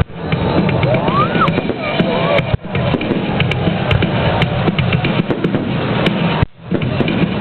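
Fireworks display: a dense run of bangs and crackles with a short rising whistle about a second in, over music with a heavy drum beat.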